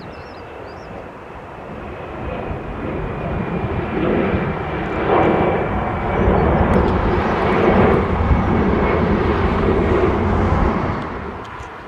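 Jet airliner passing: engine noise builds over the first few seconds, stays loud for about six seconds, then fades near the end, with a thin high whine over it early on.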